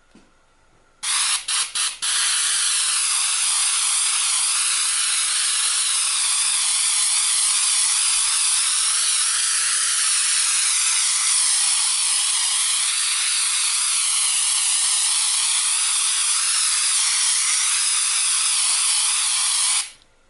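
Airbrush fitted with a homemade screen nozzle cap spraying paint: a loud hiss of air that starts about a second in, breaks off three times in quick succession, then runs steadily for about eighteen seconds before cutting off suddenly near the end.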